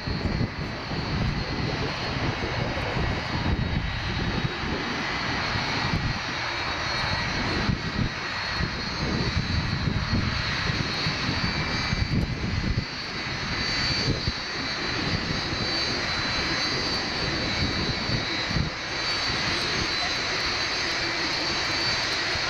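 Lockheed L-1011 TriStar's Rolls-Royce RB211 turbofan engines running at taxi power: a steady jet rumble with a thin high whine over it.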